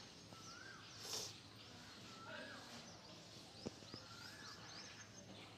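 Birds calling faintly in the background: a repeated rising-then-falling whistled call about every two seconds, with higher short chirps between. A single sharp click comes about two-thirds of the way in.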